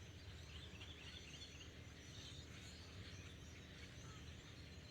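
A large flock of birds chirping faintly, many short overlapping calls, over a low steady background rumble.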